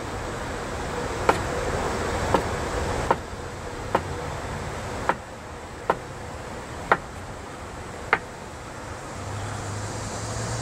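Large kitchen knife slicing an avocado on a wooden cutting board: about eight sharp taps of the blade striking the board, roughly one a second, over a steady background hiss.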